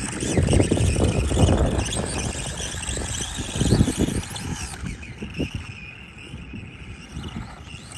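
Motor of a SkyRC SR5 1/4-scale electric RC dirt bike whining, with a gusty low rumble underneath. It grows fainter through the second half as the bike rides away.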